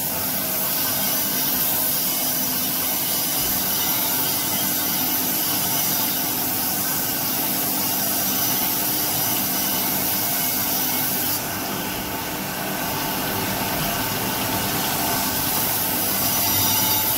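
Crankshaft grinding machine's abrasive wheel grinding a JCB engine crankshaft journal under a stream of coolant. A steady grinding hiss runs over the hum of the machine's motors, easing slightly about two-thirds of the way through before building again.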